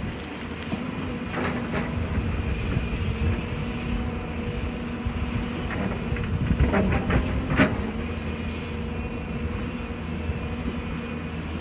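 Diesel excavator engine running steadily with a low rumble and a constant hum, with a few sharp metallic clanks about a second and a half in and a cluster of them about seven seconds in.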